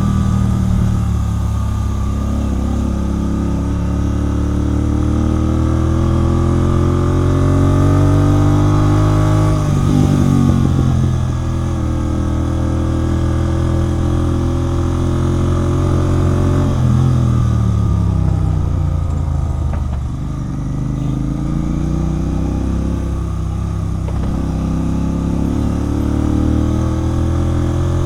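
Royal Enfield Continental GT 650's parallel-twin engine through a Red Rooster aftermarket exhaust, under way. The pitch climbs steadily under throttle for the first ten seconds and drops sharply at about ten seconds. It holds, falls as the bike slows from about seventeen to twenty seconds, then climbs again.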